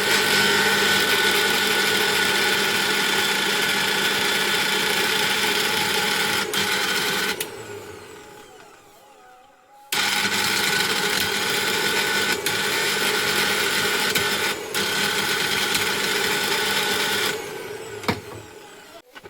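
Mixer grinder motor running at speed with a steady hum, switched off after about seven seconds and winding down, then started again abruptly about ten seconds in and run for another seven seconds before winding down again. Its running noise is the sound problem being shown. A few sharp clicks come near the end.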